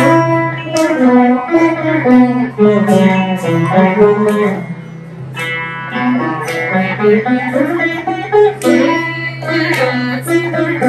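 An ensemble of Saraswati veenas playing a Carnatic melody together, with plucked notes over a steady low drone.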